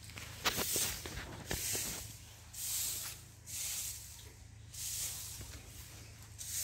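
Tractor diesel engine idling as a steady low hum, with a hiss that swells and fades about once a second and a few clicks in the first two seconds.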